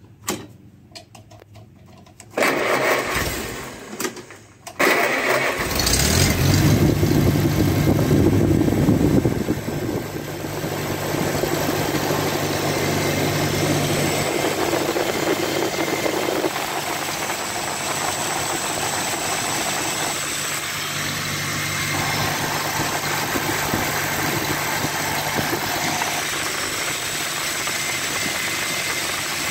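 A 1953 Farmall Cub's four-cylinder gasoline engine is cranked over and catches about five seconds in. It runs louder for a few seconds, then settles into a steady idle.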